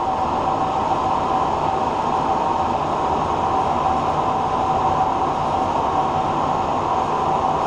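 Large 36x144 engine lathe running under a 30-thou-deep cut with a carbide insert: a loud, steady machine noise with two held high tones over a low drone, from the gearing and belt drive and the tool cutting metal.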